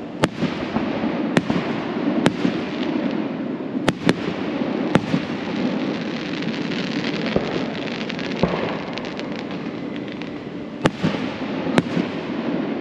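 Aerial fireworks shells bursting: about eight sharp bangs at uneven spacing, with a stretch of crackling in the middle, over steady background noise.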